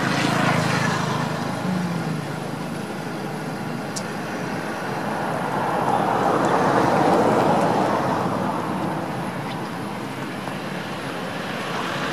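Background road traffic: a steady noise that swells as vehicles pass, loudest about seven seconds in.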